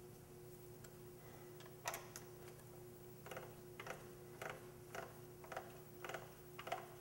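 Metal clicks from an Allen-key tool turning a bolt back into a motorcycle's rearset bracket: a couple of clicks about two seconds in, then a regular series of about two a second, over a faint steady hum.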